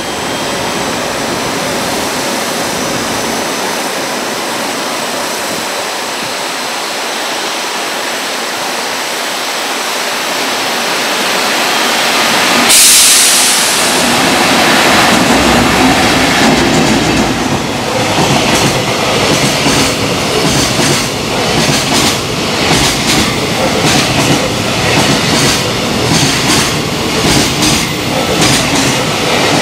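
EF210 electric locomotive hauling a container freight train past at speed. A steady rushing noise grows as it approaches, and a sudden loud rush comes as the locomotive draws level a little before halfway. Then the wagon wheels give a rhythmic clickety-clack over the rail joints.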